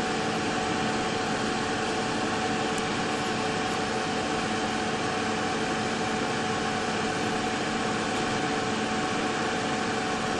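Steady machine hum and hiss with a few faint steady tones, unchanging throughout, with no clicks or knocks standing out.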